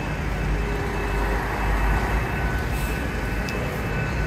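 Steady low rumble and hum of a GWR passenger train standing at the platform, with a faint steady whine above it.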